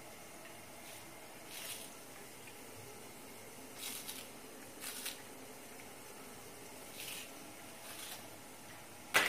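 Knife cutting fresh coriander (dhania) held in the hand, with no board: a few faint, crisp cuts spaced a second or two apart, then a sharp click near the end.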